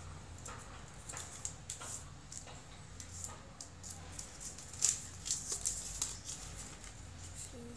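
Craft paper rustling and crackling as fingers fold it and press along the creases: short, irregular scratchy sounds, the sharpest about five seconds in.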